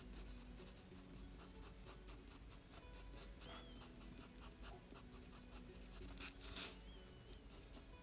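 Colored pencil scratching on drawing paper in many short, quick strokes, faint throughout, with one louder scratch or rustle a little past six seconds in.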